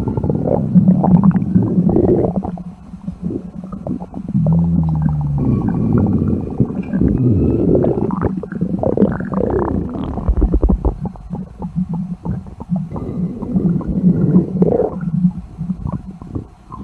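Stomach growling sound effects: a run of loud, irregular gurgling rumbles with low notes that slide up and down, dipping briefly twice.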